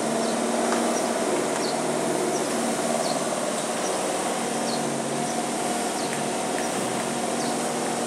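Bobcat skid steer's diesel engine running steadily while the machine turns and works its bucket, with a constant engine hum and hiss. Faint short high chirps repeat about every second and a half.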